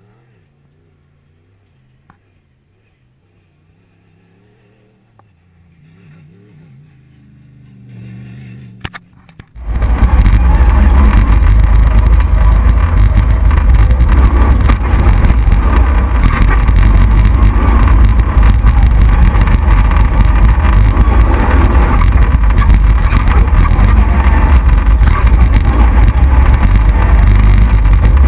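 A rally car's engine heard from afar, growing louder and rising in pitch as it nears. About ten seconds in it gives way to a loud, steady roar of engine and wind heard from the bonnet of the V8 Mitsubishi Pajero racing on a dirt track.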